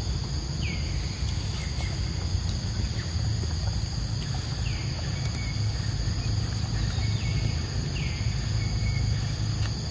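Forest ambience: a steady high insect drone over a low rumble, with a bird repeating a short downward-sweeping call every few seconds.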